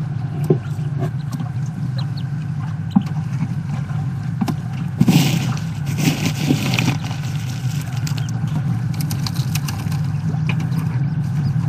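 Scattered light clicks and a rustle about five to seven seconds in, over a steady low hum.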